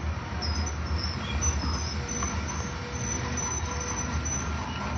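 Grain freight train rolling past on the rails, a steady low rumble of the cars' wheels.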